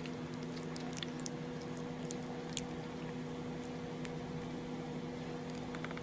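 Steady low hum, with scattered faint small clicks and wet smacks.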